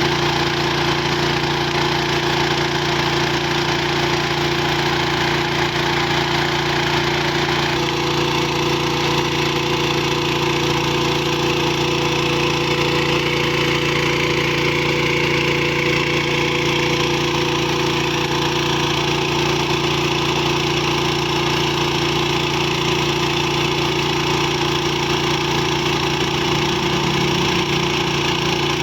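Diesel engine driving a water pump, running steadily at a constant speed.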